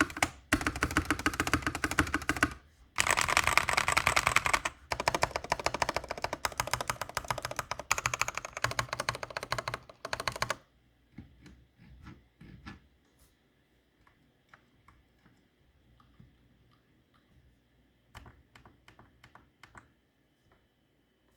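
Asus ROG Strix Flare II Animate mechanical gaming keyboard being typed on fast, a dense run of key clicks with brief pauses. About ten seconds in the typing stops, and only a few scattered, quieter key presses follow.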